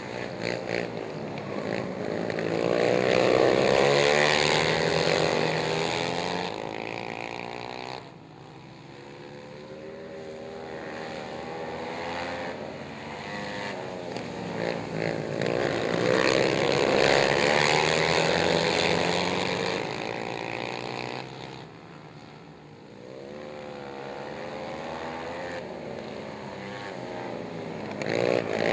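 Several racing ATV engines at full throttle, their pitch rising and falling as the riders work the throttle through the turns. The sound swells as the quads pass close and fades as they move away. It drops suddenly about eight seconds in and again about twenty-one seconds in.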